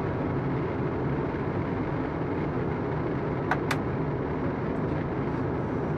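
Steady flight-deck noise of a Boeing 777 on approach: rushing airflow and the hum of its GE90 engines. Two short clicks sound close together about three and a half seconds in.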